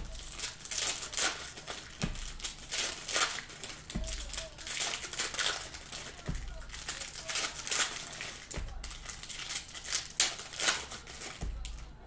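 Foil wrappers of 2020 Select football hobby packs crinkling and tearing as the packs are ripped open and the cards handled, in a quick, uneven run of crackly rustles.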